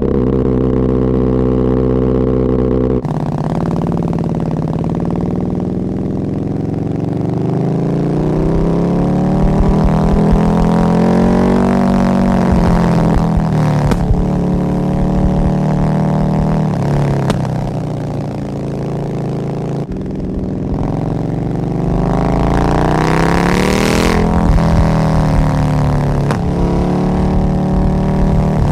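Naked sport motorcycle's engine and exhaust heard from the rider's seat, holding a steady note for the first few seconds, then revving up and down repeatedly as it accelerates through the gears and slows in traffic.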